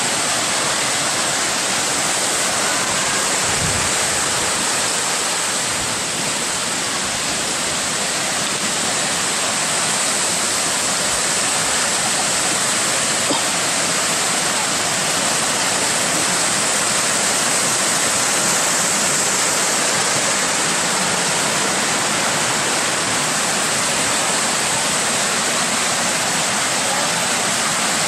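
Waterfall cascades pouring over tiered pools, a steady, even rush of water.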